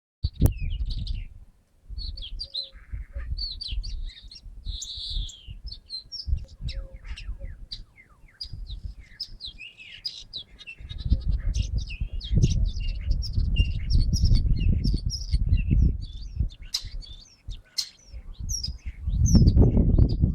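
Several birds singing and chirping, a dense run of short, high chirps and whistles with many calls overlapping. A low rumbling noise comes and goes under them, loudest in the second half.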